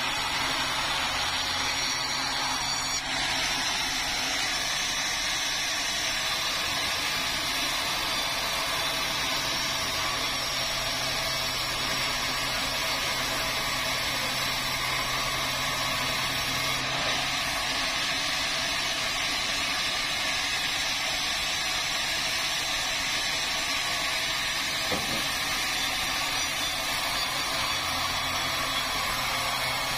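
Sawmill power saw running steadily as it cuts through a red meranti log, an even, unbroken mechanical noise that shifts slightly about three seconds in.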